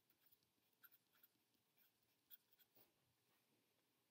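Faint, short scratching strokes of a pen writing on paper, a few words being written.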